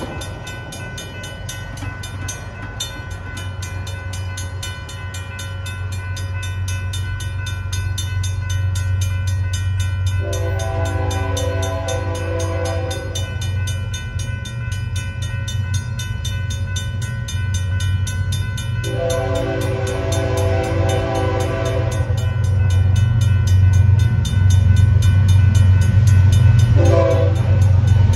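Railroad crossing bells ringing rapidly and steadily while an approaching BNSF freight train's diesel locomotive sounds its horn: two long blasts and then a short one, the crossing signal. The engine's low rumble grows louder as it nears.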